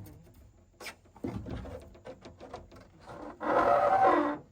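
Wooden or bamboo poles knocking and clattering as they are handled, then a loud rasping scrape lasting about a second near the end.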